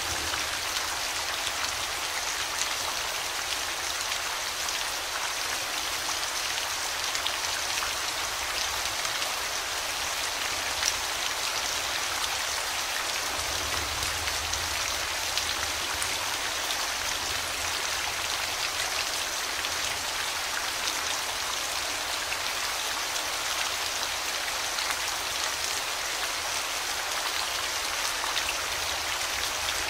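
Steady rain falling, with individual drops ticking sharply through the even hiss of the downpour.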